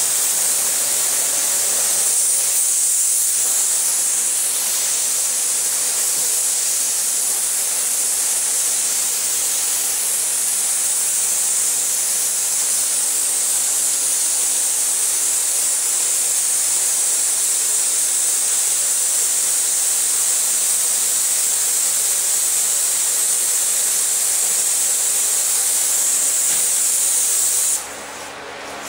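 Air-driven paint spray gun hissing steadily as it sprays thick paint, then stopping suddenly near the end.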